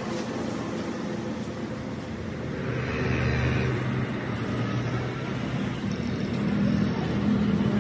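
Motorcycle engine running. Its steady hum grows louder from about a third of the way in, over general road noise.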